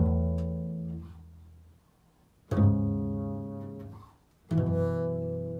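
Upright double bass plucked, three low notes about two seconds apart, each starting sharply and ringing out as it fades.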